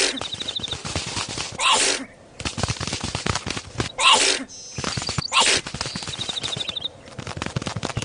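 Cartoon sound effects for a small animated insect. There is a rapid patter of tiny ticks, two short high trilled chirps (one at the start, one about six seconds in), and three hissy bursts about half a second long, near 2, 4 and 5.5 seconds.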